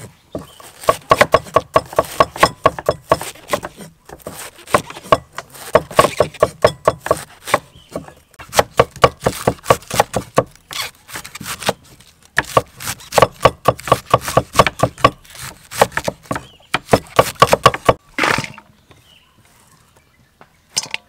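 A cleaver rapidly shredding cabbage on a thick wooden chopping block: fast runs of sharp knocks in spells of a few seconds with short pauses between. The chopping ends about three seconds before the end with a brief scraping sound.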